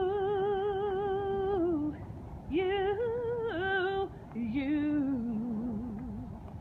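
A woman singing unaccompanied, with no words: she holds a long note with vibrato, then after a short pause sings two shorter, higher notes, and then a lower, wavering phrase that fades near the end.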